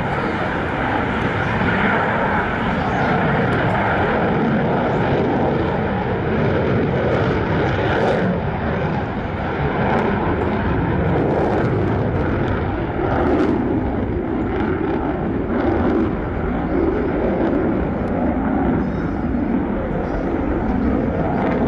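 Jet noise from an F/A-18 Hornet's twin engines: a loud, steady sound that swells and eases slightly as the jet flies.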